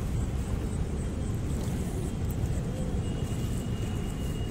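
Steady low rumbling outdoor background noise with no distinct events; a faint, thin, high steady tone joins about three seconds in.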